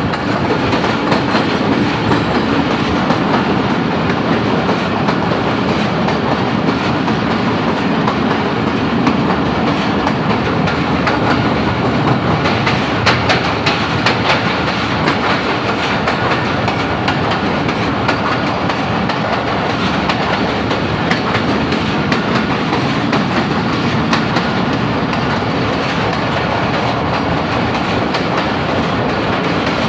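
Passenger train running through a railway tunnel: a loud, steady rumble of steel wheels on the rails with clickety-clack over the rail joints, and a run of sharper clacks about halfway through.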